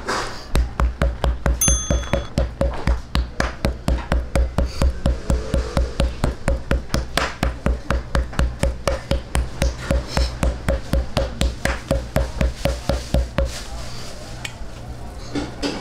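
Knife blade chopping rapidly into a slice of raw pork on a plastic cutting board to score it: even taps about five a second, each with a dull thud, stopping about 13 seconds in.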